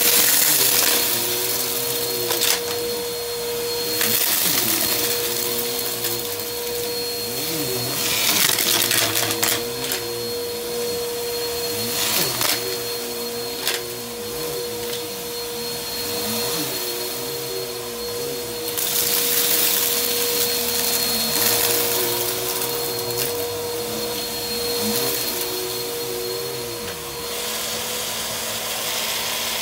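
Bissell PowerForce upright vacuum running on carpet with a steady motor hum, its hiss swelling and fading several times as it is pushed back and forth. A few sharp clicks of debris being sucked up cut through.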